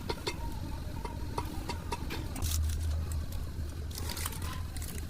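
Low steady mechanical hum, swelling briefly a little past the middle, with scattered light metallic clicks and taps of tools and parts being handled.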